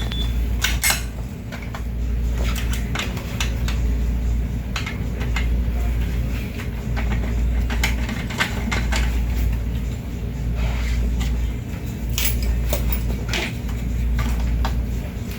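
Scattered clicks and light metallic clinks of tools and bicycle parts being handled during brake work, over a steady low hum.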